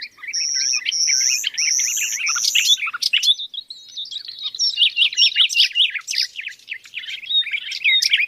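Small birds chirping busily, many short calls overlapping, with a run of four longer high whistled notes in the first few seconds.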